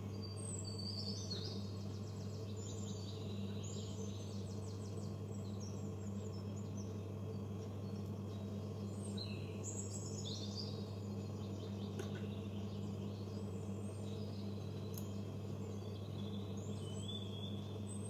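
A bird chirping and trilling in short high phrases every second or two, over a steady low hum, with a couple of faint clicks.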